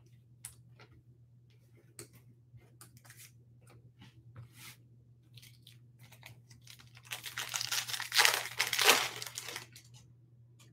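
A sealed foil trading-card pack (2021 Bowman Chrome) being torn open: a loud crinkly tearing of the wrapper about seven seconds in, lasting about three seconds. Before it come light scattered taps and rustles of cards and packs being handled.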